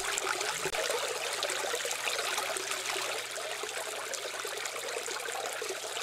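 Steady outdoor background of trickling, running water, with a faint low steady hum under it.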